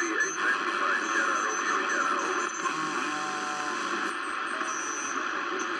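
Wartime R109T army receiver's loudspeaker putting out steady shortwave band noise and static, with faint warbling tones through it, between transmissions on the 80 m band.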